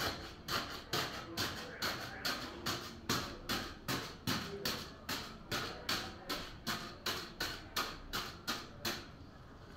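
Floor tile being tapped down with quick, even taps, about three a second, pausing briefly near the end.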